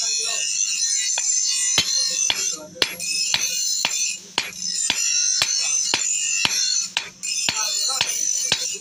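Hand hammer striking a steel chaff cutter blade on an anvil, about two ringing blows a second, as the blade is forged back into shape. Background music plays throughout.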